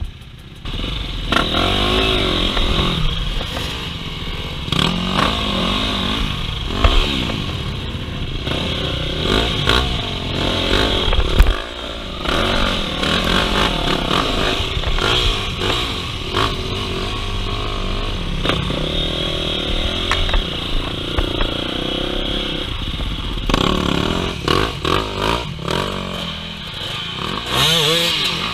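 Orange KTM enduro dirt bike's engine revving up and down hard as it climbs a rutted dirt trail, the pitch rising and falling with each throttle blip, with clatter from the bike over rough ground. The engine note jumps up about a second in.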